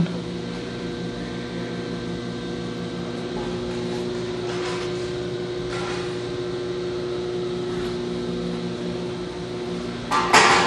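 Piqua Model 30 vertical baler's three-phase electric motor running with a steady electrical hum, with a brief clatter about ten seconds in.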